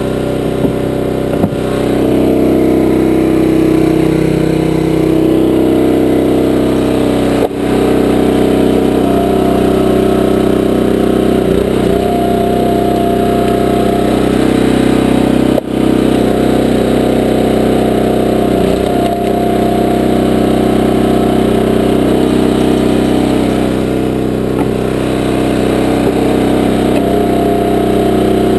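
Small gas engine of a 20-ton horizontal log splitter running steadily throughout. Its note shifts for a few seconds twice, as the splitting ram is worked.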